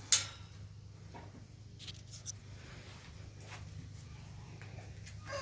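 A sharp click just after the start, then faint rustling and rubbing over a low steady hum.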